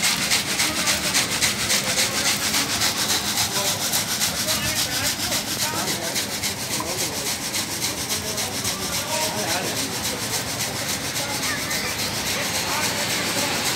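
Supari (areca nut) grading machine running, its shaking perforated sieve screens jostling cut areca-nut pieces. The result is a dense, steady rattling hiss with a fast, even pulse.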